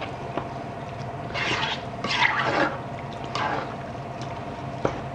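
A slotted spatula stirring a thick tomato stew of tripe and vegetables in a nonstick pan: a few wet, squelching strokes, with a steady low hum underneath and a light tap near the end.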